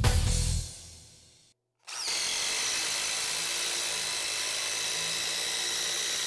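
DeWalt DCF887 brushless impact driver driving a long Timberlock structural screw into wood. Its hammering stops within the first second as the screw seats. After a brief gap the driver runs again on the next screw with a steady high-pitched whine.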